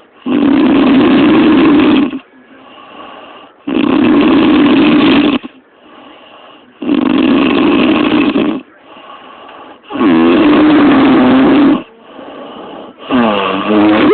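A woman snoring loudly in a steady rhythm: five long, rough snores of nearly two seconds each, about every three seconds, with quieter breathing between them.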